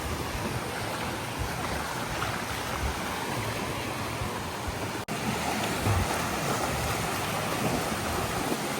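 Ocean surf washing on a beach: a steady rushing noise, briefly cut off about five seconds in.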